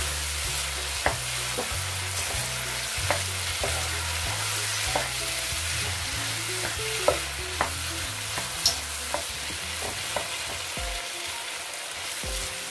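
Potato curry sizzling in a kadai while a spatula stirs it, scraping and tapping against the pan. The sharp taps come one or two a second over a steady frying sizzle.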